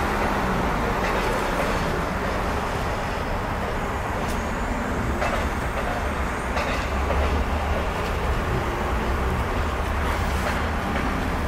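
Double-deck commuter train rolling steadily across a rail overpass, heard as a continuous low rumble mixed with street traffic and a city bus passing below.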